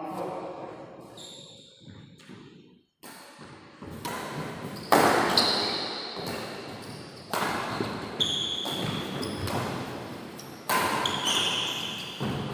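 Badminton rally: racquets striking a shuttlecock, several sharp hits one to three seconds apart, each with a brief high ring and echoing in a large hall.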